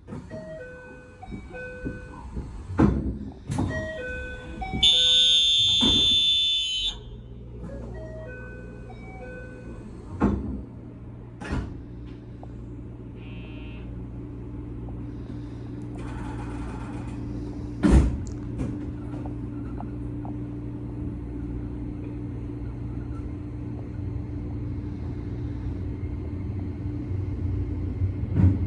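JR West 271-series Haruka train doors: a short run of chime notes, then a loud door buzzer for about two seconds as the sliding doors close with a knock. The train then sets off, with a steady low hum of motors and running noise that slowly grows louder, and a sharp knock about 18 seconds in.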